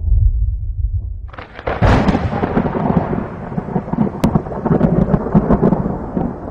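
Thunder: a low rumble, then a sharp crack a little over a second in that rolls on as a long, crackling rumble.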